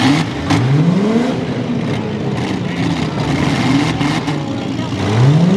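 Demolition derby vehicles' engines revving, with the pitch rising steeply twice, about half a second in and again near the end, under the chatter of crowd voices.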